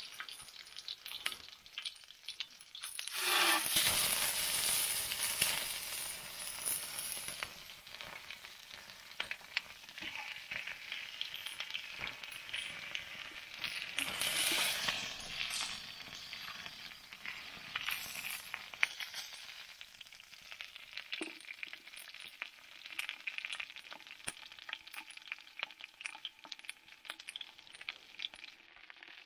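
Chicken drumsticks sizzling in a small frying pan over a wood-burning chip stove, with many light crackles and ticks. The sizzle swells loudly about three seconds in and again about fourteen seconds in, when the pieces are turned with tongs and the flames flare up into the pan.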